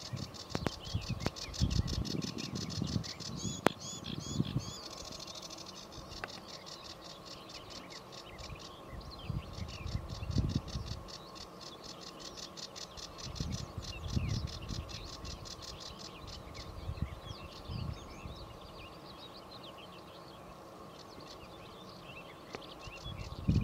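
Sedge warbler singing: a long, fast, chattering song of rasping notes, trills and short whistles that runs on almost without a break. Low rumbles of wind on the microphone come and go, strongest in the first few seconds.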